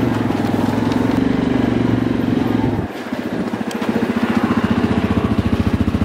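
ATV (four-wheeler) engine running under way, then easing off about three seconds in and settling into a steady, rapidly pulsing idle as the machine comes to a stop.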